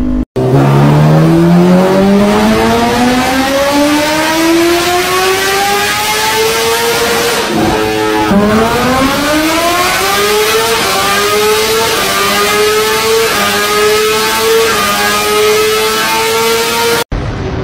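Sport motorcycle engine revved hard while standing still: the pitch climbs steadily for about seven seconds, drops sharply, then climbs again and holds high with small repeated dips. The exhaust headers are glowing red hot from the sustained high revs.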